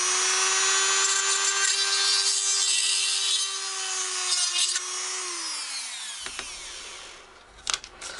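Handheld rotary tool drilling through a resin moulding: a steady motor whine with the gritty sound of the bit cutting. About five seconds in the tool is switched off and its pitch falls as it spins down, then a few sharp clicks come near the end.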